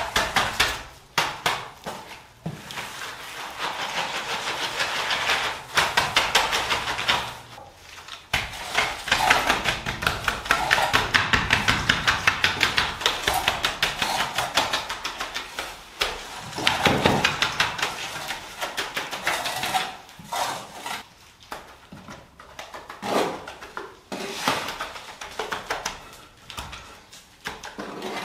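Hand tools tapping and clinking against wet concrete and its container while a shower slab is being poured, in long runs of rapid strokes, several a second, with short pauses.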